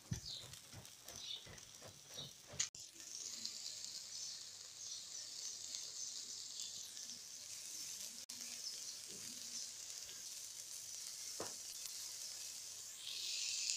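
Meat skewers sizzling over a charcoal grill: scattered small crackles for the first few seconds, then a faint, steady hiss.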